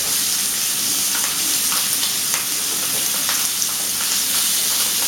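Chicken pieces frying skin-side down in a little very hot oil, a steady loud sizzle with scattered crackles and pops.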